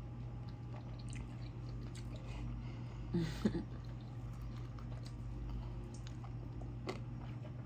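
Close-miked chewing and small mouth clicks of someone eating, over a steady low hum, with a short voiced sound about three seconds in.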